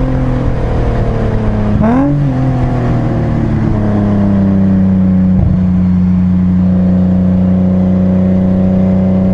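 BMW 328i inline-six heard from inside the cabin on track: the engine note falls as revs drop, briefly rises about two seconds in, then at about five and a half seconds jumps to a steady, held note under throttle.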